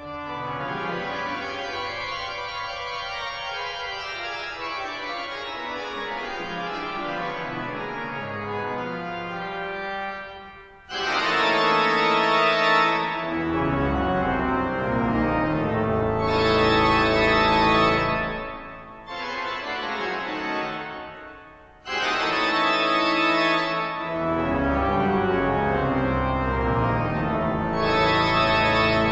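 Pipe organ music with sustained chords. Louder, fuller chords with deep bass come in about eleven seconds in and again about twenty-two seconds in, with a quieter stretch between.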